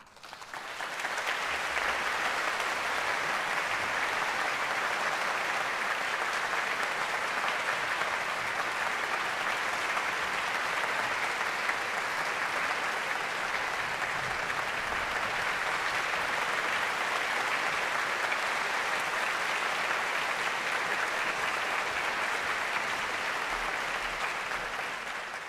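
Audience applauding, building from the first claps to full, steady applause within about the first two seconds, at the close of a performance.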